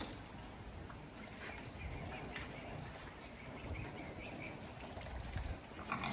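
Faint, scattered bird chirps over a steady low outdoor rumble.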